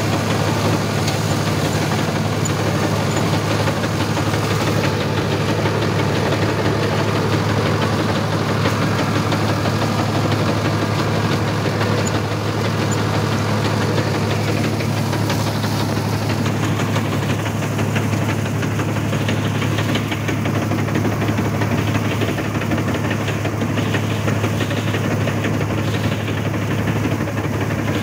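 Sonalika RX 60 tractor's diesel engine running steadily with a constant low drone while it pulls a straw reaper through wheat stubble, heard from the driver's seat.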